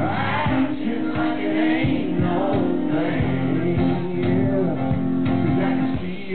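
A male singer's voice carrying a country song live over two strummed acoustic guitars.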